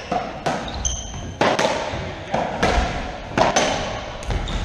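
Racquetball rally: sharp cracks of racquet strikes and the ball hitting the court walls and floor, every half second to a second, each ringing briefly off the walls. A short high squeak, likely a shoe on the wooden floor, about a second in.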